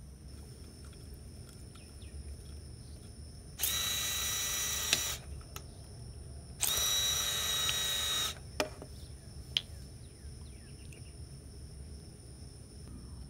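Two steady mechanical buzzes like a small electric drill running, each about a second and a half long and about a second apart. Two sharp clicks follow.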